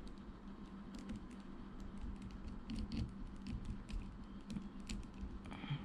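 Irregular light plastic clicks and taps from an S.H.Figuarts Ultraman Z action figure as its joints and small parts are moved and fitted by hand.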